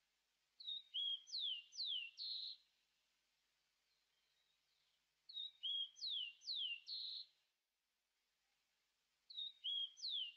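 A songbird singing the same short phrase three times, about every four and a half seconds, with dead silence between. Each phrase is a few short high chirps, then two quick downward-sliding whistles, then a brief buzzy note.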